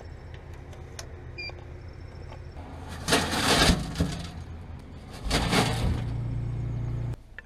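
Bagged-ice vending machine dispensing: a short electronic beep, then two loud rushing slides of bagged ice and handling in the steel chute, over the machine's low motor hum. The hum grows louder after the second slide and cuts off near the end.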